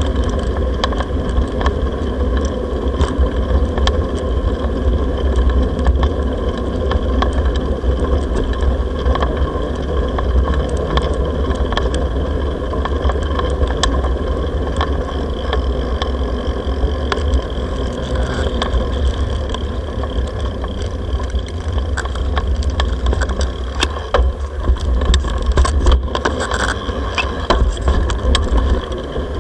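Ride noise on an SJCAM M20 action camera's built-in microphone as it moves along on a bicycle: a steady low rumble of wind buffeting the microphone, with frequent small clicks and rattles from the mount and the tyres rolling over the paving.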